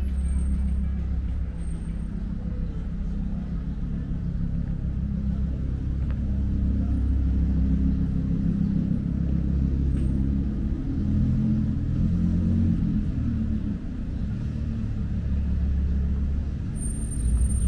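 City street traffic: car and bus engines running and passing close by, a continuous low rumble that swells and eases.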